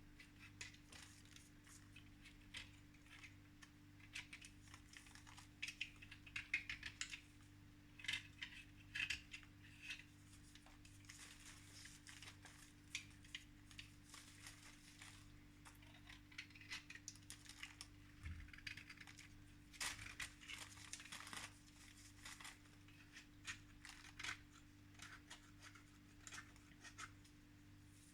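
Faint, irregular scratching, clicking and rustling, as of small things being handled close up, over a steady low electrical hum.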